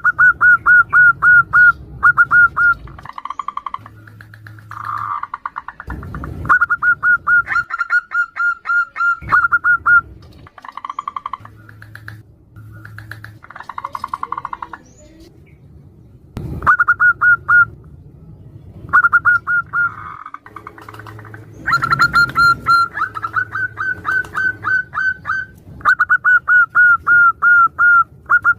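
Zebra doves calling back and forth: runs of quick, short staccato coo notes lasting a few seconds each, alternating with lower rolling coos, described as a female calling to a male.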